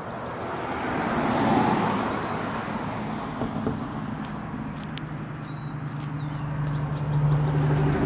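Road traffic: a passing vehicle swells and fades about a second and a half in, then an engine's steady drone grows louder toward the end as another vehicle approaches.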